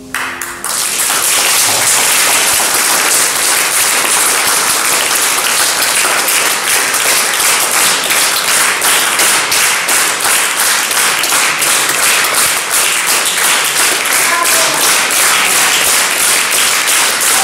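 Audience applauding, many hands clapping steadily, starting just after the piano's last chord ends.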